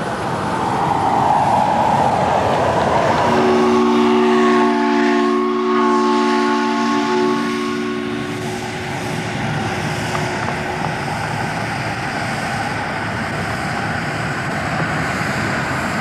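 Miniature live-steam model of a Union Pacific Big Boy 4-8-8-4 locomotive running with a steady hiss of steam. About three seconds in, its chime whistle sounds a chord of several notes for about five seconds, then cuts off.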